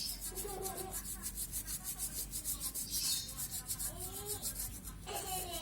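Rapid, even rubbing strokes, about five a second: a part being scrubbed or brushed.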